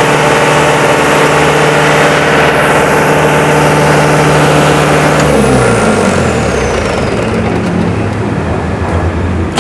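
Four-cylinder 4JB1T turbodiesel of a hydrant pump set running steadily, then shut off by its stop solenoid about five seconds in: the engine note slides down and winds to a stop as a high whine falls away.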